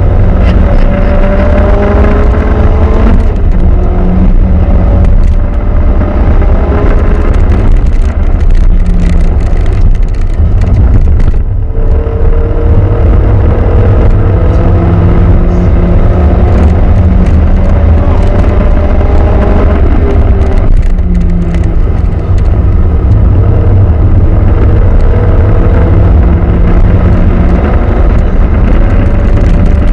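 Renault Clio RS Gordini engine driven hard on track: the pitch climbs as it revs up, drops at each gear change, and climbs again, several times over, over a heavy low rumble.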